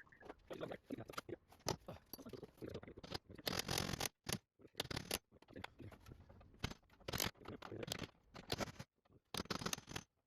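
Tool work on the screws of a car door's lock assembly: irregular clicks and scrapes of metal on metal, with a longer stretch of scraping about three to four seconds in.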